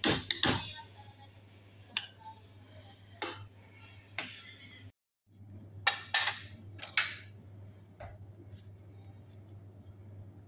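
Kitchen utensil sounds: a spatula scraping and clinking against a frying pan while stirring cooked minced meat, then, after a brief break, a few sharper clicks of a knife against a plate. A low steady hum runs underneath.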